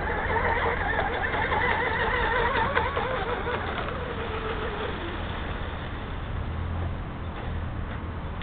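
Radio-controlled electric speedboat running flat out: the high whine of its Turnigy 4074 brushless motor and propeller wavers up and down in pitch, then fades about five seconds in as the boat draws away.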